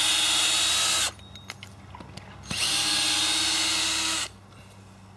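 Cordless drill run in reverse in two steady bursts, unscrewing a large plastic screw-in ground peg from the soil: the first run stops about a second in, and the second starts about two and a half seconds in and stops a little after four seconds.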